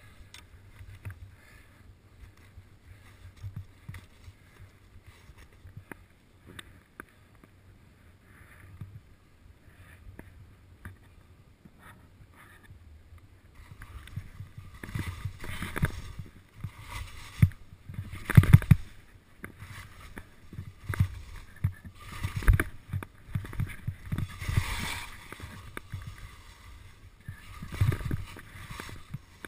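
Skis swishing and scraping over packed snow on a mogul run, quiet and irregular at first, then louder, uneven scrapes from each turn from about halfway through.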